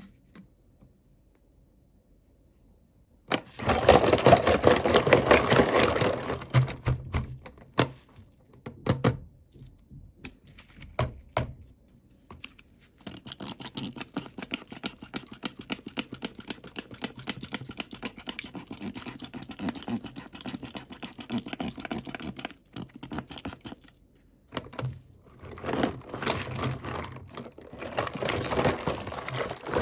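Plastic toy packaging and small plastic toy pieces being handled and unwrapped: bursts of dense crinkling with scattered clicks and taps between them.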